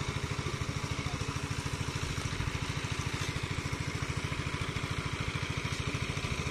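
Small engine running steadily at a constant speed, with rapid, even firing pulses. It is the engine of the pump dewatering the pond.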